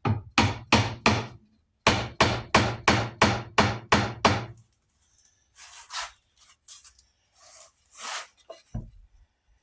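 Hammer tapping a glue-coated wooden dowel down into a hole in a guitar neck: light, quick taps, about four a second, a run of five, a short pause, then about nine more, kept gentle so the wood does not split. Softer handling and rubbing noises follow.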